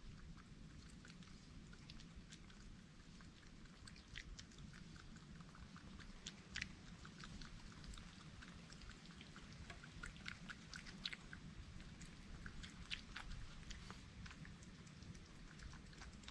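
Faint, irregular chewing and crunching of a wild animal eating food from a feeding table, with a steady low hum underneath.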